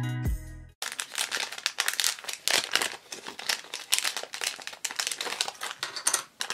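Clear plastic packaging bag crinkling in the hands as a small acrylic keychain is worked out of it, a dense run of quick crackles. Background music cuts off just under a second in.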